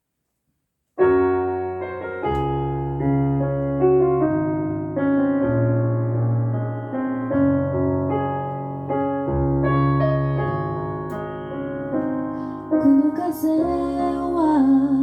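A cappella group singing the song's intro without words: sustained vocal chords over a low voiced bass line, starting about a second in. Near the end a lead voice with a bending, wavering line comes in above the chords.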